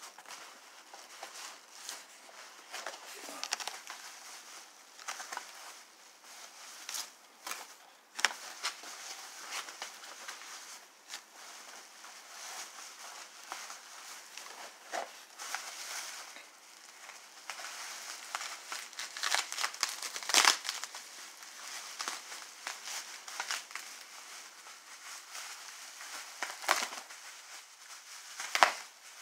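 Plastic packing material, foam wrap sheets and bubble wrap, crinkling and rustling as hands dig it out of a cardboard shipping box, with many sharp crackles, the loudest about 20 seconds in.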